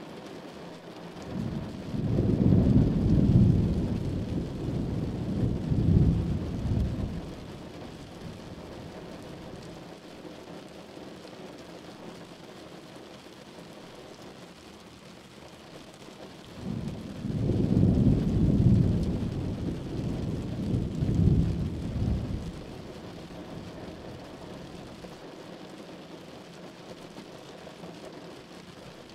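Heavy rain falling steadily, with two long rolls of thunder, each rumbling for about five seconds: one a couple of seconds in, the other just past the middle.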